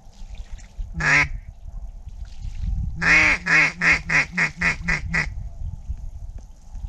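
Duck call sounding a single quack, then a run of about eight quacks that get shorter and quicker, in the cadence of a hen mallard's greeting call.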